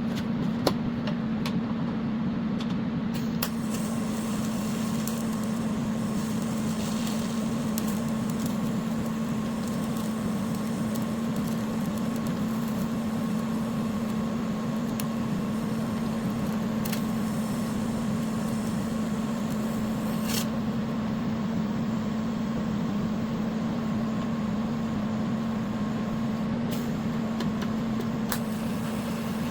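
TIG welder running an arc on the steel snowblower housing: a steady electrical hum with hiss and occasional sharp clicks.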